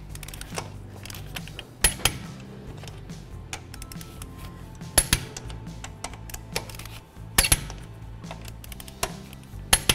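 Click-type torque wrench tightening wheel lug nuts to 76 ft-lb. Light ratcheting ticks are broken by four sharp clicks roughly two and a half seconds apart, each the wrench breaking over as a nut reaches torque.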